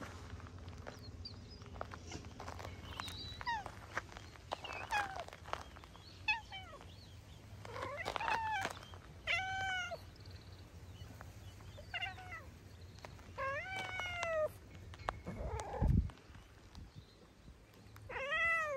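Tortoiseshell cat meowing repeatedly: about eight short meows, each rising then falling in pitch. One dull thump comes near the end.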